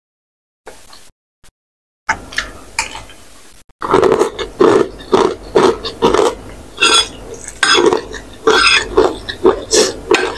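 Close-miked chewing of a mouthful of instant ramen noodles, with wet mouth sounds. It starts about two seconds in, grows louder a couple of seconds later and settles into a steady rhythm of about two chews a second.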